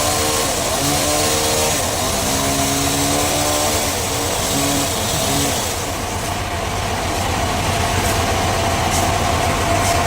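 Sawmill machinery running with a loud mechanical hum whose pitch steps up and down. About six seconds in it changes to a denser noise with a steady whine, and a few sharp clicks come near the end.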